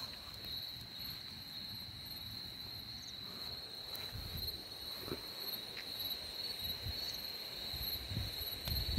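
Night insects trilling in one continuous, steady high-pitched drone, with a few low thumps and rustles underneath.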